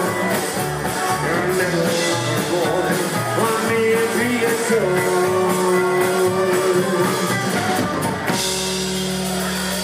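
Live rockabilly band playing on acoustic guitar, electric guitar, upright bass and drum kit. About eight seconds in the beat stops and the band holds a final chord that rings out, the end of the song.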